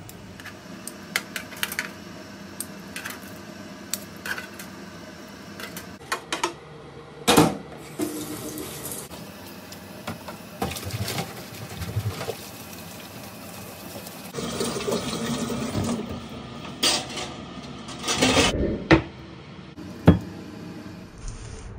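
Kitchen work: water splashing and running at times, with scattered clinks and knocks of utensils and dishes.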